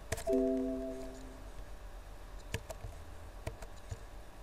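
A click, then a short electronic chime of several steady tones that rings for about a second and fades: a computer alert sound. A few quiet mouse clicks follow in the second half.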